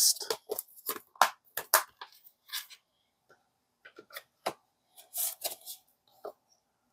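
Clear plastic disc case being handled: a string of sharp clicks and snaps as a disc is pressed onto its hub and the case is shut. About five seconds in comes a short scraping as the case slides into a cardboard slipcover.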